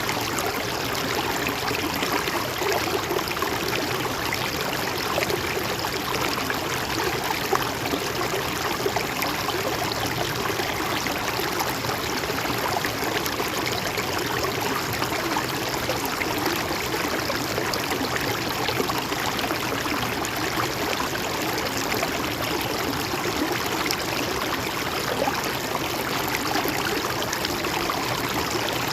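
A river or stream flowing steadily over rocks, a constant rushing and gurgling of water with no breaks.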